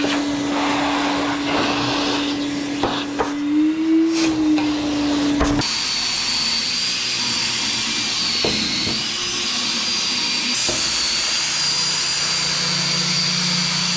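A 20-volt DeWalt cordless die grinder running, grinding down welds on angle iron. About five and a half seconds in, the sound changes abruptly to a steady high whine.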